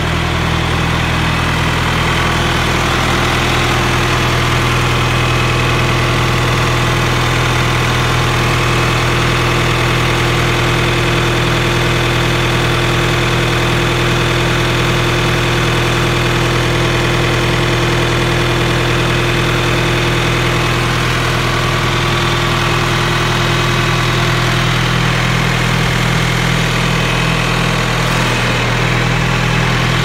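John Deere 410 backhoe's engine idling steadily, run to warm up and charge the battery after sitting unused for about a month and a half.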